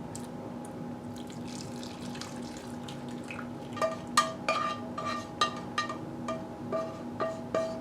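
Water bubbling in a hot frying pan over a steady hum. From about four seconds in, a utensil clinks against cookware again and again, each strike ringing briefly.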